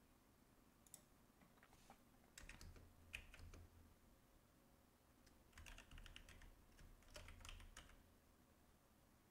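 Faint computer keyboard typing: a couple of single keystrokes, then two quick runs of keys, the first about two and a half seconds in and the second about five and a half seconds in.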